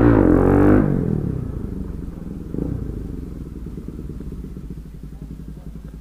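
Motorcycle engine revved hard with rising revs as it pulls away for a wheelie. It then fades steadily as the bike rides off, with a brief surge about two and a half seconds in.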